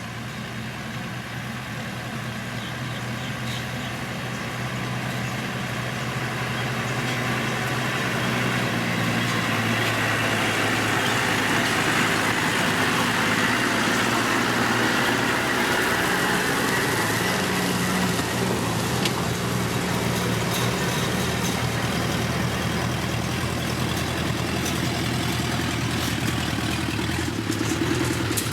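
Diesel engine of a heavy road-construction machine running steadily, growing louder over the first several seconds and then holding at a constant level.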